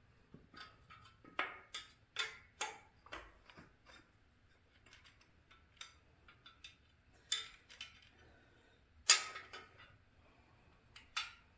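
Scattered metallic clicks, clinks and knocks of a cam bearing installer bar and hand tools being handled and repositioned in an LS engine block, with one sharper knock about nine seconds in.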